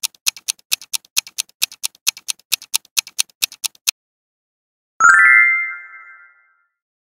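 Quiz countdown sound effect: a clock-style tick-tock at about four ticks a second that stops about four seconds in. About a second later a single bright chime rings and fades over about a second and a half, marking the answer reveal.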